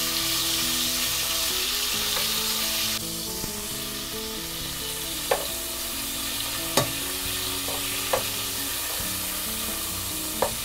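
Diced bacon sizzling as it fries in oil in a pot, with a few sharp clicks of the stirring utensil against the pot as the pieces are turned.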